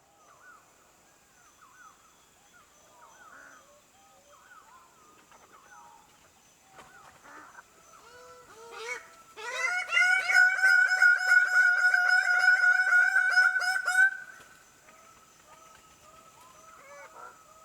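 Male greater birds-of-paradise calling during their courtship display. Scattered calls at first, then from about nine seconds in a loud, rapid run of repeated calls for about five seconds, before it drops back to scattered calls.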